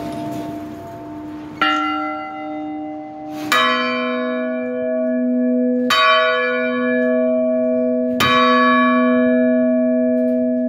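Church tower bells rung by their clappers for a call to mass. One bell is struck once about a second and a half in. A lower-pitched bell then strikes three times, about two seconds apart, each stroke ringing on into the next.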